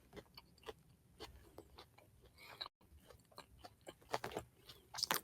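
Faint, irregular clicks and mouth noises close to the microphone, with a brief break in the sound a little past halfway.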